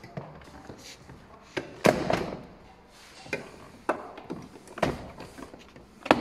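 A car door being taken off: a series of irregular sharp knocks and clicks of metal and plastic as the door is handled and worked on at its hinge pillar, the loudest about two seconds in.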